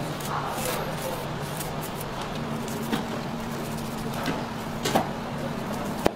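A long knife slicing raw beef on a cutting board: a few short, sharp clicks over a steady low hum and hiss.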